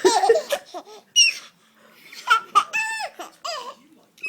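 Seven-month-old baby laughing in short high-pitched bursts, several in a row, the loudest right at the start and about a second in.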